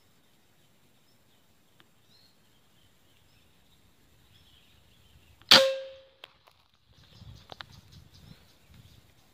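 A single air rifle shot about five and a half seconds in: one sharp crack with a brief ringing tone. A few faint clicks and low rustling and thumps follow.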